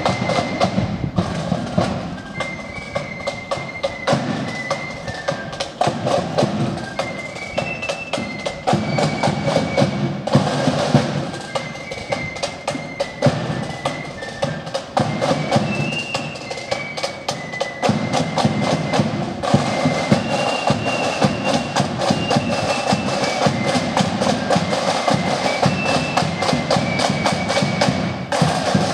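Marching flute band playing a tune on flutes over snare drums and bass drum, the drumming steady and dense throughout.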